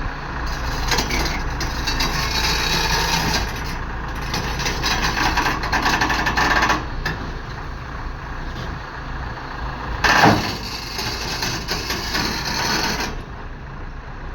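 Hyundai 140LC-9 crawler excavator working while loading: a steady low engine rumble underneath, with three spells of louder, hissier working noise and the loudest surge about ten seconds in.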